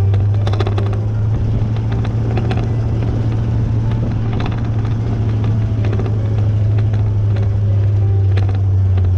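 Ford F-250 highboy pickup driving along a gravel forest road: a steady low engine drone, with irregular clicks and knocks from the rough road.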